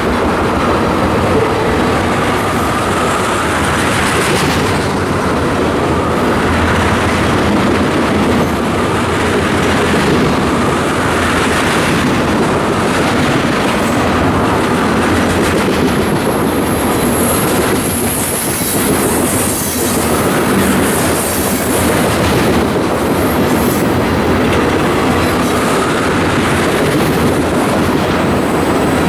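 Freight train of steel tank cars rolling past close by: a steady rumble with the clickety-clack of wheels over rail joints, and a thin high wheel squeal for a few seconds about two-thirds of the way through.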